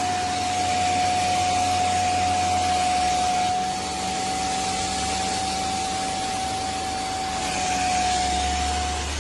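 Upholstery water vacuum cleaner's 600 W motor running with a steady whine over a rush of air. The level dips slightly about four seconds in and rises again near eight seconds.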